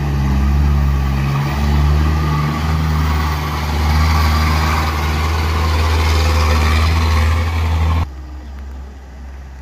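Diesel engine of a light dump truck running as it drives past close by on a dirt road: a loud, steady low drone with road noise. It drops away abruptly about eight seconds in, leaving a much quieter background.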